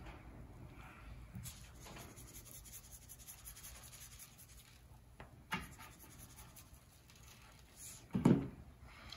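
Coarse-ground salt, pepper and garlic seasoning being shaken from a plastic shaker onto a raw prime rib roast: a fast run of fine, scratchy ticks as the grains fall. A sharp click a little past halfway, and near the end a dull thump, the loudest sound here.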